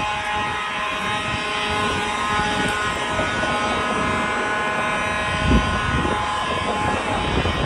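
Several fire alarm horns of a building alarm system sounding at once, their steady tones overlapping into one continuous electronic blare over a low rumble, with a single dull thump about five and a half seconds in.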